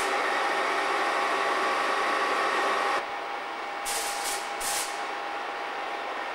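Class 101 diesel multiple unit standing with its diesel engines idling, a steady mechanical hum with held tones, which drops in level about three seconds in. Around four seconds in, three short hisses of air escape from the train's air system.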